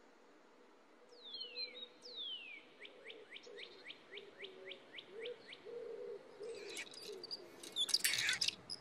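Birdsong: two long falling whistles, then a quick run of short falling chirps, about three a second. A louder noisy burst comes near the end.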